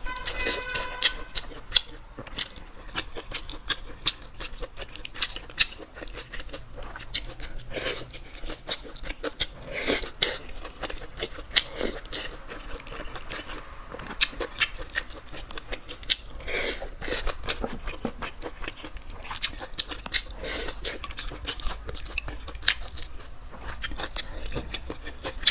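Close-miked eating: chewing with irregular crunches and wet mouth clicks.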